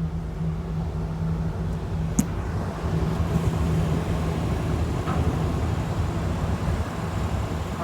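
Car ferry's engines running with a steady low drone and hum during the crossing, with one sharp click about two seconds in.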